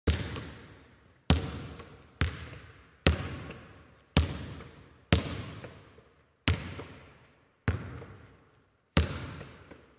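A basketball bouncing slowly on a hard floor, nine sharp bounces about a second apart, each echoing and fading for about a second.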